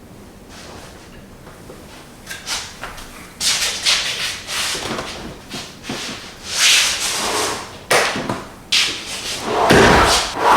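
Irregular rustling and rubbing strokes of material being handled, sparse at first, then louder and more frequent from about three seconds in.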